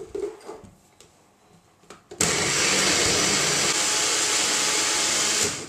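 Personal press-down blender running for about three seconds, blending a cup of frozen berries, yogurt and juice into a smoothie; it starts abruptly a couple of seconds in, right after a click as the cup is pressed onto the base, and stops just before the end.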